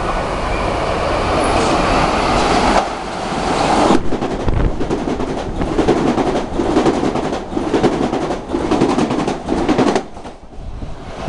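Metro-North electric multiple-unit commuter train passing close by at speed. Its rumble builds, then its wheels knock over the rail joints in a fast, regular clatter, and the noise drops away sharply near the end as the last car clears.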